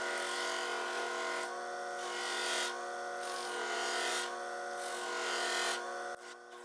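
Hobby bench grinder running with a steady motor hum, its cotton buffing wheel loaded with white polishing compound. A watch crystal is pressed against the spinning wheel in four passes, each a rubbing hiss, the last ending about six seconds in.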